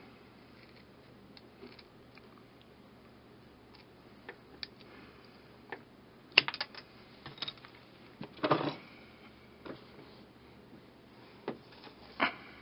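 Scissors snipping through a thin strip of wooden tongue depressor: scattered sharp clicks and crunches, the loudest about six seconds in, with a longer crunch about eight and a half seconds in.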